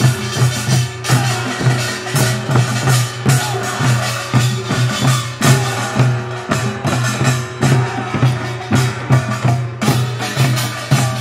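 Korean pungmul folk percussion band playing a gilnori procession rhythm: barrel drums and small brass hand gongs (kkwaenggwari) struck together in a steady, driving beat.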